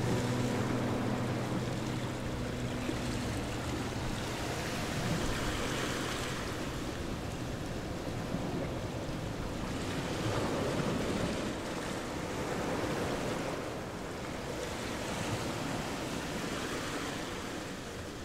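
Rushing, wind-like noise that swells and fades every few seconds, with the tail of background music dying away in the first three seconds.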